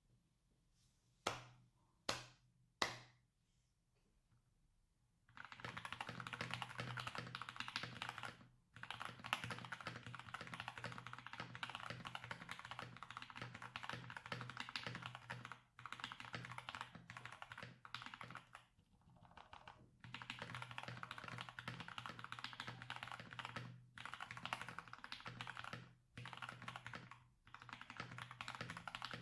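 Akko 3084 LA V2 mechanical keyboard with a plastic case, FR4 plate, Thicthock Konpeitou switches lubed with 205g0 and Cherry-profile keycaps being typed on: three single keystrokes in the first three seconds, then fast continuous typing from about five seconds in, broken by a few brief pauses.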